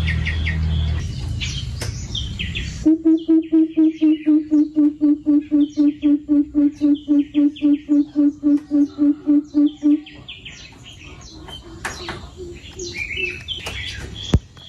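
A coucal giving its deep hooting call: a long, even series of low 'boop' notes, about four a second, starting about three seconds in and running for about seven seconds. Smaller birds chirp around it, with a low rumble under the chirps at the start.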